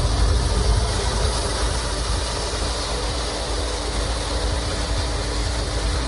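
Pet grooming blow dryer running: a steady rush of blown air with a faint, even motor hum under it.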